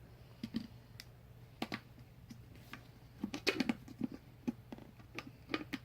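Small plastic toy parts and packaging being handled, giving light irregular clicks and taps, with a quick cluster of clicks about three and a half seconds in.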